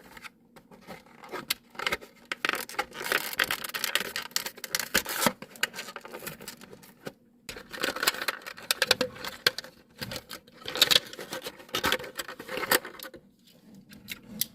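Die-cast toy car's cardboard and plastic packaging being handled and opened: crinkling, scraping and small clicks in two long stretches, each several seconds, with a short pause between.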